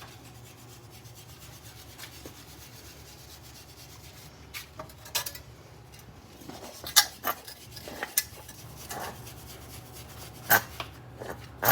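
Faint rubbing and scraping of hand work on a Subaru Forester XT's old wheel bearing, which is probably shot and dry. From about four seconds in, a scatter of sharp metallic clicks and knocks joins it, the loudest near the middle and near the end.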